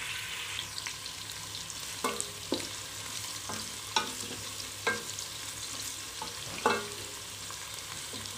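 Pale sliced onions sizzling in hot oil in a metal pot, stirred with a wooden spatula that knocks sharply against the pot about half a dozen times over the steady hiss of the frying.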